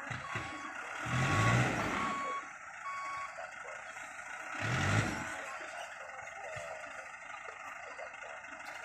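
Dump truck's warning beeper sounding a steady series of short high beeps, about one every three quarters of a second, stopping about three seconds in. Two louder swells of engine noise rise and fall, about a second in and again about five seconds in.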